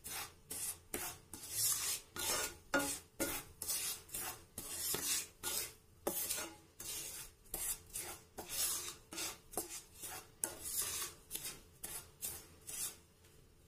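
Wooden spatula scraping and stirring semolina as it roasts in ghee in a nonstick frying pan: quick repeated scraping strokes, about two to three a second, stopping near the end.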